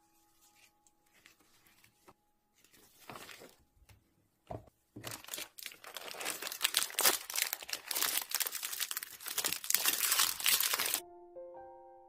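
A snack bar's plastic-and-foil wrapper being torn open and crinkled by hand: a loud, dense crackling rustle that starts about five seconds in and stops abruptly near the end, where soft music notes come in.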